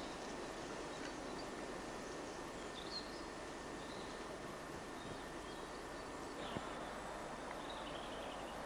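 Steady outdoor background hiss with faint, scattered high bird chirps, and a light tap about three seconds in and another about two-thirds of the way through.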